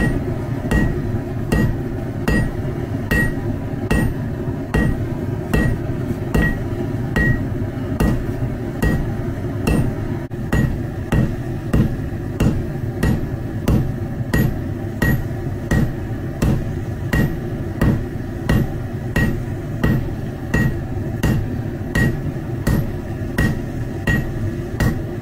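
Hand hammer striking the red-hot end of a rebar hot punch on an anvil, in a steady rhythm of a little under two blows a second. Each blow gives a short metallic ring. A steady low rumble runs underneath.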